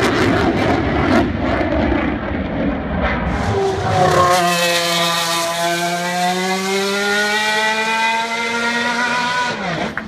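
A jet fighter flies over with a loud, rumbling rush. About three and a half seconds in this gives way to a single-seater racing car's engine at high revs, its note climbing slowly as it approaches and dropping sharply as it passes near the end.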